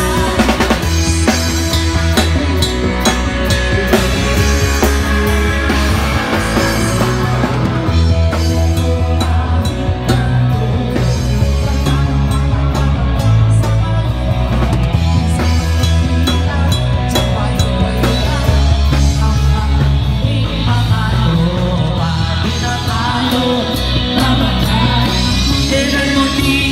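Live rock band playing: drum kit, electric guitar and keyboard, with singing.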